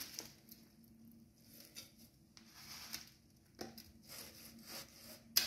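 Fresh herb leaves rustling softly as handfuls of mint, coriander and fenugreek leaves are scooped off a steel plate and dropped into a steel mixer-grinder jar. A short sharp knock comes near the end.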